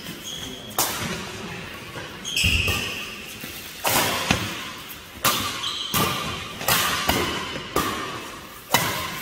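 Badminton rackets striking a shuttlecock in a fast doubles rally: about ten sharp hits, roughly one a second and some in quick pairs, each fading with an echo. Short high squeaks of court shoes on the sports mat come in between.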